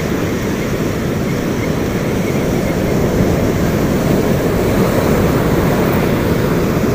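Ocean surf breaking and washing up a sandy beach: a steady, deep wash of noise.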